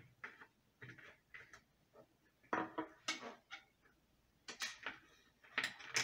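A screwdriver working on the plastic housing of a fan remote-control receiver, unscrewing and prying it open: scattered clicks, scrapes and knocks of plastic. Louder clusters come about halfway through and near the end as the cover comes loose.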